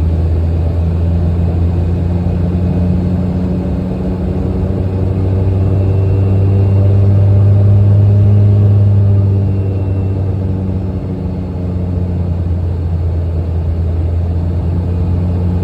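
Steady low drone of a jet airliner's engines and airflow heard inside the passenger cabin, with a deep hum that swells louder midway and then eases back.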